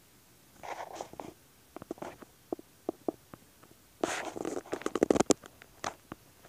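Scattered clicks and rustling, with a denser stretch of rapid scraping clicks from about four seconds in to a little past five.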